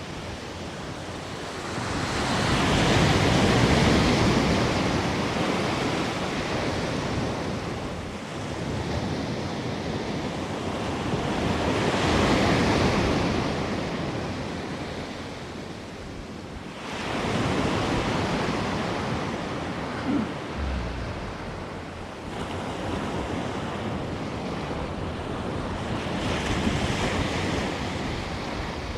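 Ocean surf breaking on a beach, the wash swelling and fading in slow surges several seconds apart, with wind buffeting the microphone.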